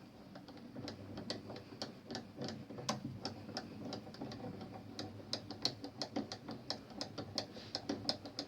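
Faint, fairly even clicking, about three clicks a second, as a homemade milling fixture is wound back by hand with the mill switched off.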